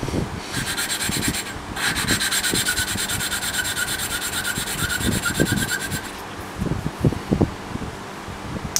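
A valve being lapped into its seat in a small air-cooled engine cylinder head: a lapping stick is twirled back and forth between the palms, and the valve face grinds against the seat through lapping compound with a gritty rasping rub. The rasp breaks briefly near two seconds in and stops about six seconds in, leaving softer rubbing and a few light knocks.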